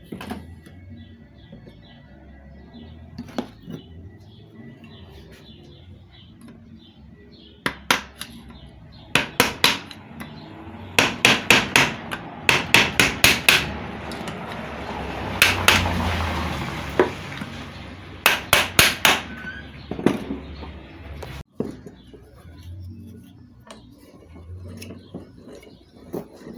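Hammer blows on the metal parts of a centrifugal water pump being taken apart, struck in quick groups of several hits, with a rasping noise in the middle of the hammering.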